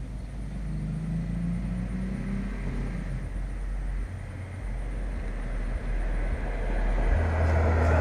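A vehicle running, its low rumble growing slowly louder.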